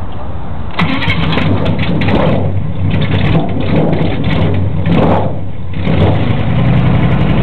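Airboat engine running, its pitch swooping up and down for several seconds before it settles into a steady, even running tone near the end.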